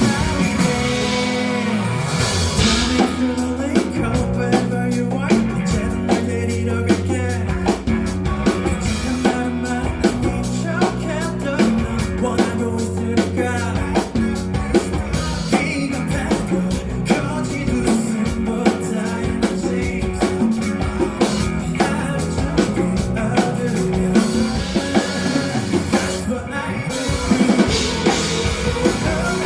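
A live band playing a rock song, with a drum kit keeping a steady beat under bass and other instruments.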